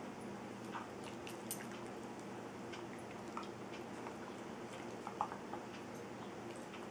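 A Brittany spaniel and a Bengal cat play-wrestling: soft scuffling with scattered small clicks and mouthing sounds, one sharper click about five seconds in.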